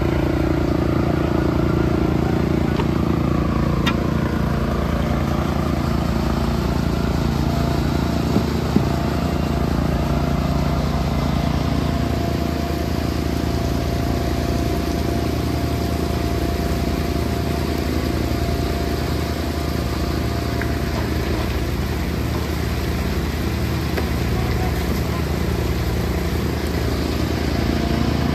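Engine of heavy concrete-pumping equipment running steadily, a low even hum with no change in speed.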